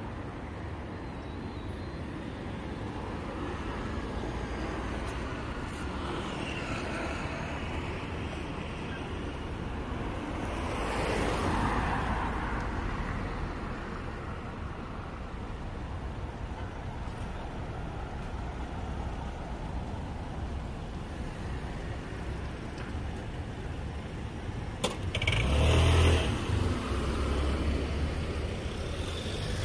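Street traffic: a steady low rumble of road noise with vehicles passing, one swelling up about eleven seconds in and a louder, closer one about twenty-five seconds in.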